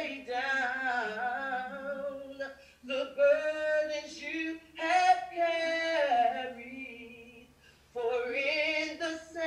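A woman's voice singing unaccompanied, one voice in long held notes, with short pauses between phrases.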